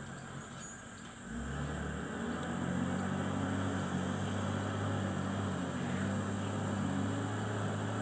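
Heavy diesel engines of a JCB wheel loader and a loaded dump truck working hard as the loader pushes the truck out of the mud; the engine note swells about a second and a half in and then holds steady.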